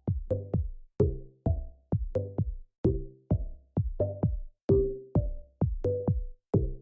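Electronic music with a steady drum-machine beat and deep bass notes under each hit.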